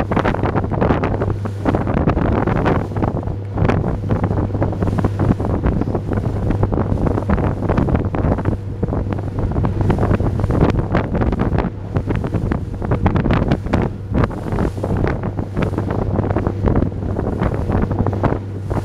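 Small motorboat under way in choppy sea: strong wind buffeting the microphone in irregular gusts over the steady low drone of the boat's engine, with waves washing against the hull.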